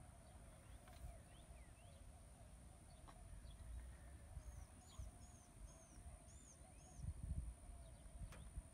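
Near-silent outdoor ambience: small birds chirping, with a run of about six short, quickly repeated high notes around the middle, over a faint low rumble and a steady high whine.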